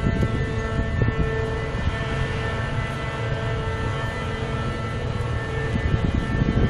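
Pedestrian lifting bridge's drive machinery running steadily as its span rises: a constant many-toned mechanical hum over a low rumble.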